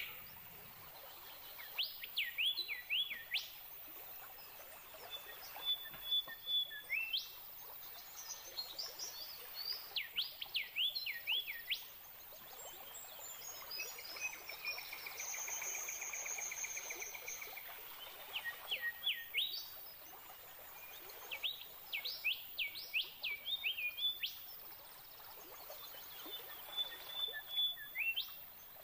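Wild songbirds singing: repeated bursts of quick, downward-sweeping whistled notes every few seconds, with a short held whistle now and then and a long pulsing trill in the middle.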